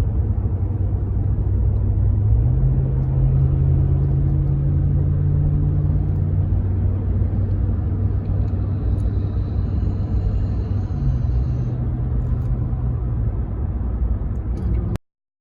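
Car engine and road noise heard from inside the cabin: a steady low drone whose engine note steps up a couple of seconds in and shifts again later. It cuts off abruptly just before the end.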